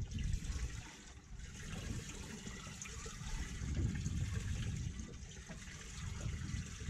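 Water splashing and running.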